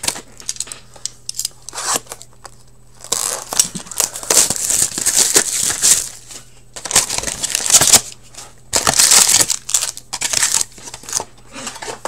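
Plastic wrapping and foil card packs crinkling and tearing in irregular bursts as a box of Upper Deck Trilogy hockey cards is unwrapped and its packs are taken out.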